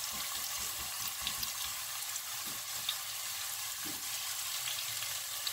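Chopped onion, garlic and a piece of jamón serrano frying in hot oil in a pot: a steady sizzle with small crackles, and now and then the soft scrape of a silicone spatula stirring.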